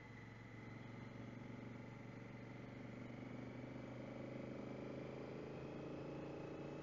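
Honda Africa Twin's parallel-twin engine running at road speed, its pitch climbing gradually through the second half as the motorcycle accelerates.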